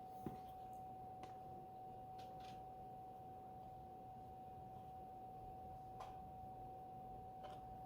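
A faint, steady high-pitched tone held on one note, with a few faint ticks over low hiss.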